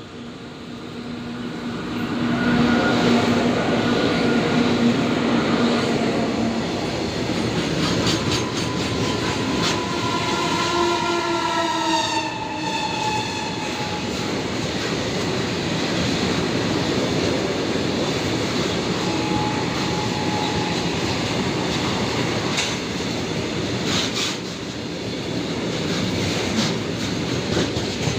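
Train horn sounding for several seconds as the locomotive approaches. Its pitch drops as it goes by about ten seconds in. Then comes the steady rumble and clickety-clack of a long string of oil tanker wagons rolling past.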